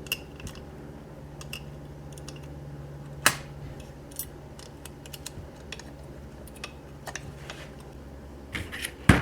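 Small metal parts clicking and tapping as a Holley carburetor's choke rod and linkage are handled and fitted, with one sharper click about three seconds in, over a steady low hum.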